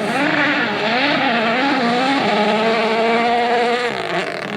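Rally car engine running hard, its pitch rising and falling through the revs, then holding steady before dropping briefly near the end.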